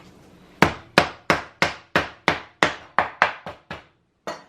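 A slice of pork being pounded with a heavy object to tenderize it: about a dozen sharp blows, roughly three a second, with a short pause before the last one.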